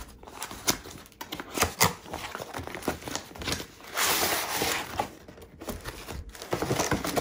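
Cardboard shipping box being opened by hand: flaps pulled open and an inner box slid out of the outer one, with light knocks, scrapes and crinkling. A longer rush of cardboard sliding on cardboard about four seconds in.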